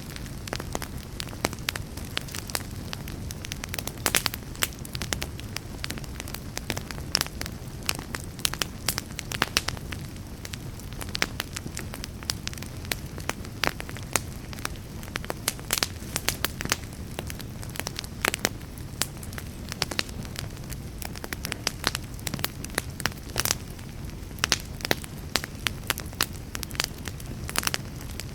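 Wood fire burning in a fireplace: frequent sharp crackles and pops over a steady low rumble of the flames.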